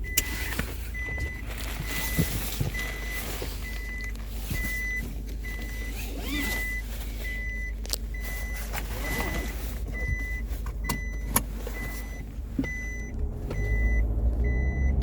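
Nissan Navara's seat belt warning chime beeping over and over, one short steady tone about every two-thirds of a second, over a low hum from the idling vehicle and the knocks and rustle of someone shifting across the back seat. The warning is sounding for empty rear seats: a seat belt sensor fault.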